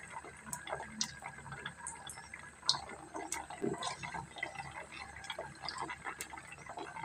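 A single rice-dough kurkure stick sizzling faintly in a steel karahi of hot cooking oil, with scattered small pops and crackles. The oil is hot enough for frying.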